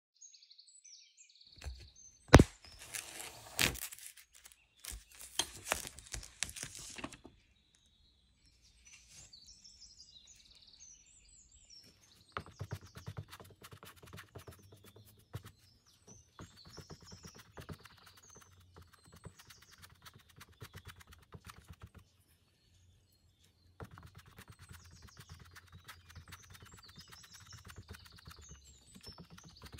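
Kitchen sponge dabbing paint onto a stretched canvas, a run of soft, quick taps, with birds chirping faintly in the background. A few loud knocks come in the first seconds, the loudest about two seconds in.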